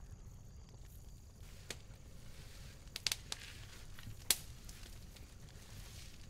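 Low steady rumble with a few sharp, isolated cracks: one just before two seconds in, a quick cluster of three around three seconds in, and the loudest a little after four seconds.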